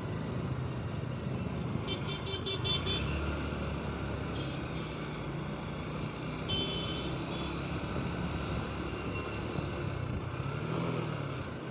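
Motorcycle engine running with wind and street traffic noise while riding through town, and a quick run of about five horn beeps about two seconds in, followed by a short horn tone a few seconds later.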